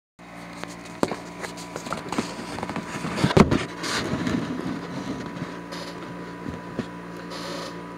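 Handling noise of a recording device being set up and a man settling in front of it: scattered taps, knocks and rustling, with the loudest knock about three and a half seconds in, over a steady faint electrical hum.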